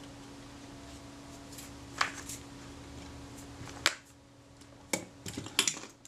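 Light clicks and taps of small hard objects being handled on a workbench: single clicks about two and four seconds in, then a short flurry of clicks near the end as a clear plastic box is picked up. A steady low hum runs underneath and stops about four seconds in.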